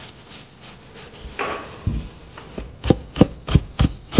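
A cleaver chopping on a wooden cutting board, mincing carrots: about five sharp knocks roughly a third of a second apart in the second half. Before them come softer scraping strokes of a vegetable being shredded on a plastic grater.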